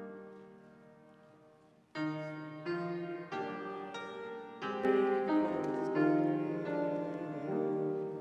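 Slow instrumental chords on a keyboard instrument. One held chord fades away, then a new series of chords begins about two seconds in and swells toward the middle.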